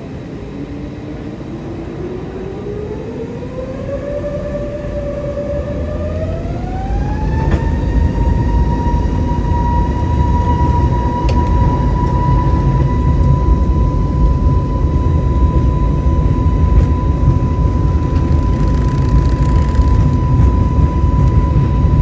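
Airbus A321neo's CFM LEAP-1A turbofans heard from inside the cabin, spooling up to takeoff thrust: a whine rises steadily in pitch for about seven seconds, then holds one high steady tone. A deep rumble from the takeoff roll grows louder as the whine levels off.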